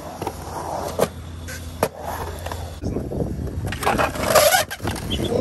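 Skateboard wheels rolling through a concrete pool bowl, with two sharp clacks about one and two seconds in. Near the end comes a loud, grinding scrape of the skateboard's metal trucks along the pool coping.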